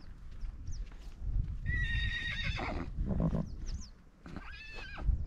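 An animal calling twice: a high call about two seconds in that trails off into a lower, pulsing part, and a second, arching call near the end. Faint short high chirps and a low rumble lie beneath.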